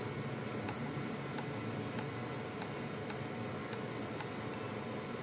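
The small manual-test push button on a handheld RJ45 cable tester clicking faintly, pressed about every half second to step the test through the wires one by one.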